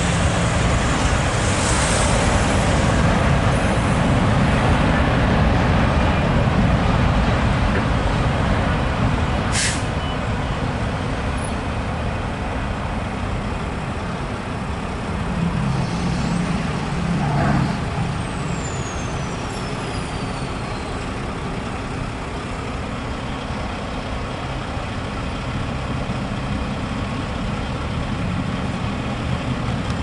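Steady rumble of road traffic mixed with a passing autorack freight train, louder for the first several seconds and then easing off. About ten seconds in comes a short sharp hiss of a truck's air brakes. Around sixteen seconds a heavy truck's diesel engine rises briefly as it pulls away.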